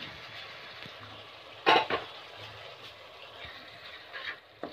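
Onion-tomato curry masala sizzling in a metal kadai while a wooden spatula stirs in the freshly added spice powders, with a loud knock about two seconds in and scraping against the pan near the end.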